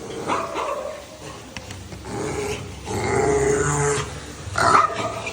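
A Labrador growling and barking in several bouts, with a long growl in the middle and the loudest, sharpest call about four and a half seconds in.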